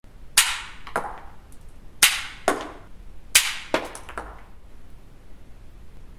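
Small 3D-printed 6 mm pistol firing: about seven sharp snaps with a short ring after each, loosely in three pairs, all within the first four seconds.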